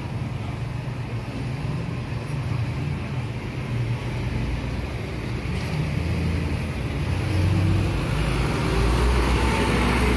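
Street traffic: engines of passing vehicles running with a steady rumble. It grows louder about eight seconds in as a small box truck passes close.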